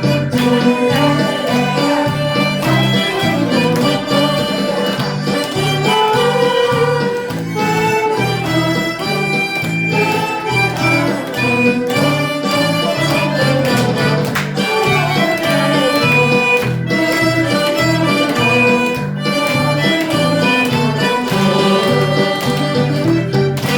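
Harmonica playing a melody over an accompaniment with a steady, rhythmic bass beat.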